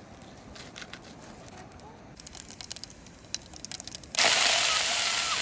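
Scattered small crackles and clicks, then food going into hot oil in a pan with a sudden loud, steady sizzle about four seconds in.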